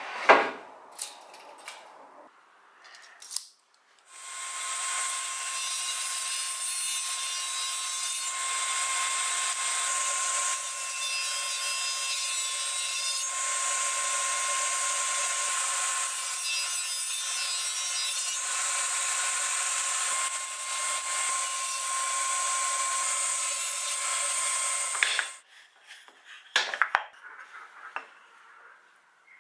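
Japanese cast-iron table saw running and cutting pine boards, a steady sound with a fixed whine for about twenty seconds that stops abruptly. Before it, a sharp knock and a few clicks as the rip fence is moved; after it, a few light taps of wood being handled.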